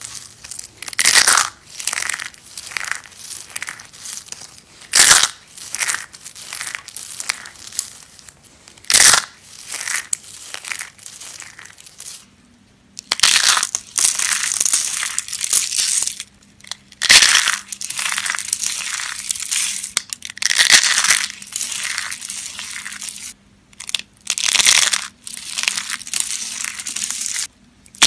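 Soap being crushed: a run of crunches and crumbling, separate strokes about once or twice a second at first, then, after a brief break about twelve seconds in, longer stretches of nearly continuous crunching with short gaps.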